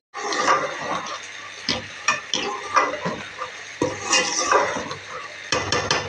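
Slotted metal spoon stirring potatoes and spinach in a metal pot, scraping and knocking irregularly against the pot's sides over the sizzle of the frying.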